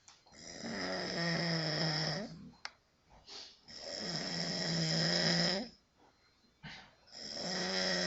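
A man snoring loudly in a regular rhythm: three long, buzzing snores about three and a half seconds apart, with short breaths between them.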